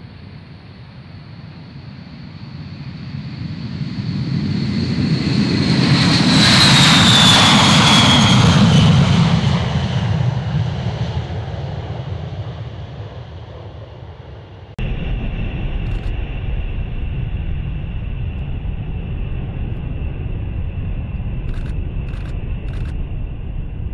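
B-52 bomber's eight TF33 turbofan engines on the takeoff run: the jet noise swells to a peak with a falling high whine as the aircraft passes, then fades. About fifteen seconds in it cuts abruptly to a steady jet rumble with a steady high tone as the bomber climbs away.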